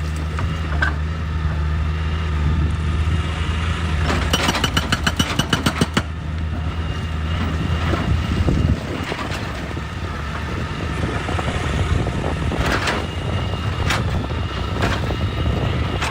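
Excavator's diesel engine running with a steady drone that drops away about nine seconds in. A burst of rapid knocks, about seven a second, comes about four seconds in and lasts nearly two seconds. A few single sharp knocks of metal or rock follow near the end.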